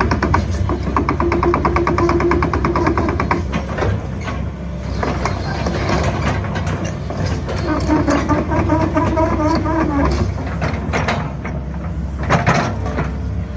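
Kobelco SK135SR-3 hydraulic excavator working: its diesel engine runs with an even beat while a steady higher tone from the hydraulics rises over it twice as the boom and upper structure are swung. A few sharp metallic clanks near the end.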